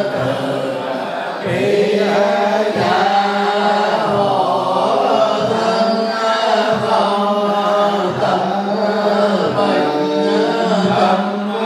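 Many voices chanting a Buddhist sutra in unison, held on a few steady pitches with a short break about every second and a half.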